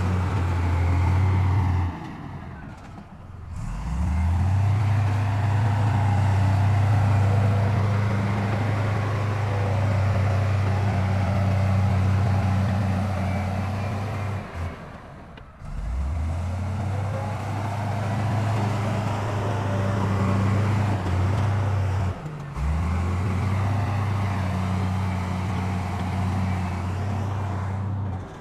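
Heavy diesel engine of earthmoving machinery running steadily with a low drone. It drops away briefly about three times, each time coming back with a rising pitch.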